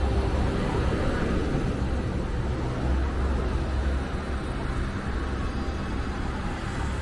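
Road traffic on the bridge: a city bus passes close by, a steady low rumble with tyre noise that eases a little after about four seconds.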